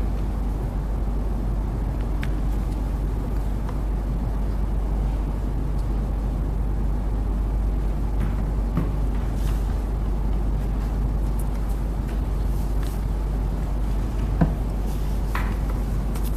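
Steady low hum and room noise, with a few faint clicks and one sharper knock about fourteen seconds in.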